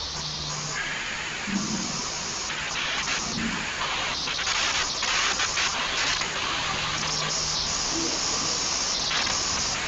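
Steady hiss of background noise, shifting a little in brightness, with a faint low hum at times.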